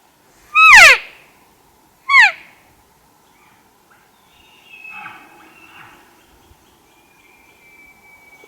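Two loud, short elk cow-style mews close by, each sliding down in pitch, about a second and a half apart, followed by fainter elk calls and a long, thin, steady high whistle near the end.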